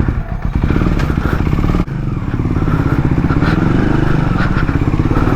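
KTM Duke motorcycle engine running while riding, with a steady rapid firing pulse. The note dips briefly about two seconds in, then climbs slowly in pitch as the bike pulls.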